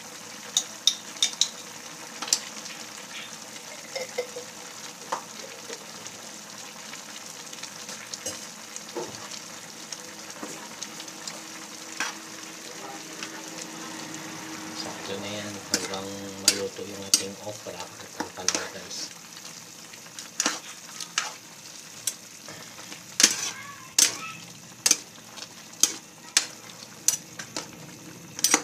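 Vegetables simmering and sizzling in a sauce in a frying pan, with a metal spoon stirring and clinking against the pan. The clinks come more often in the last ten seconds.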